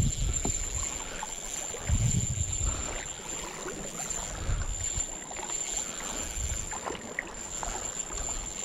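Wind rumbling on the microphone in gusts, strongest at the start and about two seconds in, over the wash of shallow river water, with a steady high-pitched whine throughout.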